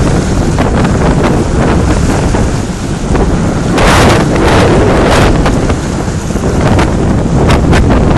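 Heavy, loud rushing and buffeting noise on the microphone, with louder surges about four and five seconds in.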